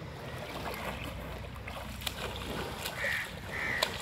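Water sloshing and splashing around water buffalo wallowing in a muddy canal as a calf swims among them, with a few sharp splashes. Two short, high calls come about three seconds in.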